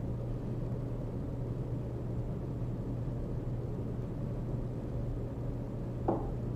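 Domestic cat purring, a steady low rumble throughout, with one brief short sound near the end.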